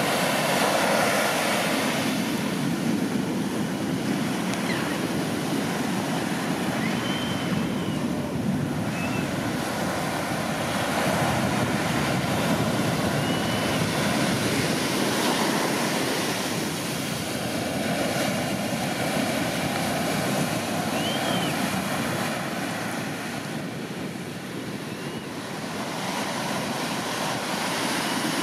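Storm-swell surf breaking on the beach: a steady rush of crashing and washing waves that swells and eases as sets come through. A few faint, short bird calls rise above it now and then.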